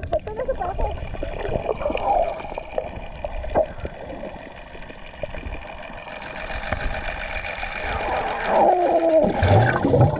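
Underwater sound picked up by a GoPro held beneath the surface while snorkeling: muffled water movement and gurgling, growing louder with a rush of bubbles near the end.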